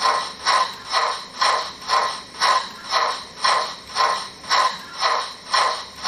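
Steam exhaust chuffs from the ESU LokSound 5 sound decoder of a Gauge 1 brass model of the Bavarian D XII tank locomotive, played through the model's loudspeaker in time with the slowly turning driving wheels. The chuffs come evenly, about two a second, each a sharp puff that fades quickly.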